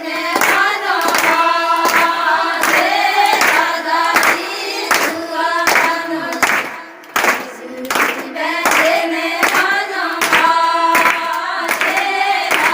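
A group of voices singing a Gujarati Christian devotional song together, with hands clapping along in a steady beat.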